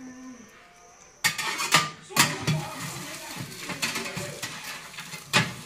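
Metal spatula scraping and knocking against a metal oven tray as roasting meat is turned. It starts about a second in with a few sharp clatters, continues with lighter scraping, and ends with one more sharp knock near the end.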